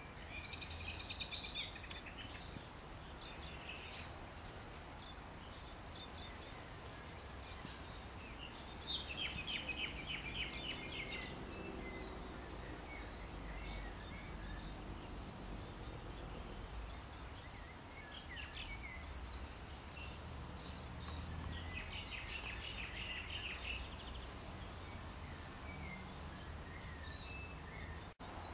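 Birds chirping and singing in bursts, loudest about a second in and again around ten and twenty-two seconds, over a steady low background rumble.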